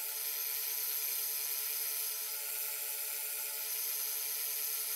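Wood lathe running steadily while sandpaper is held against the small spinning wooden workpiece, a steady rubbing hiss over the motor's whine.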